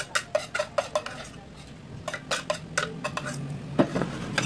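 Dishes, pots and cutlery clinking as they are washed at a kitchen sink and set in a dish rack: a quick series of sharp clinks in short runs, the loudest near the end.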